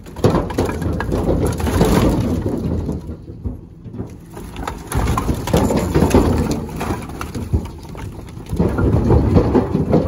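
Split hardwood firewood tumbling out of a tipped wooden crate into a truck's wooden-sided bed, the pieces clattering and knocking against each other and the boards in surges. It eases off briefly about three seconds in, then picks up again.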